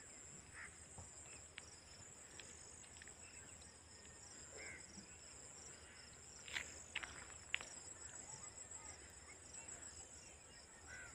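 Faint, steady high-pitched chirring of field insects in a pulsing rhythm. A few sharp clicks a little past halfway.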